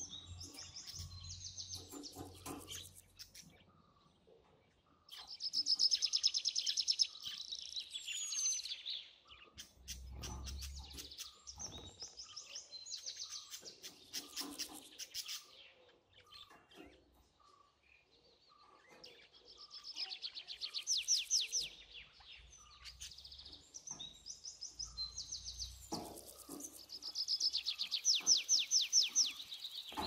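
Budgerigars warbling and chirping, in bursts of fast chattering notes that come and go, loudest a few seconds in and again near the end.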